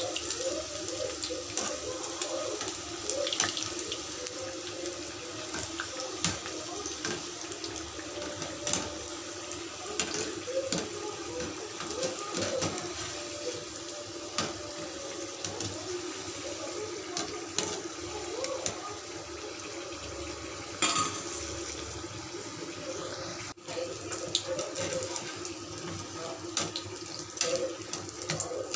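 Samosas deep-frying in hot oil: a steady sizzle with many small crackles and pops, and a sharper click a little after halfway and again about two-thirds through.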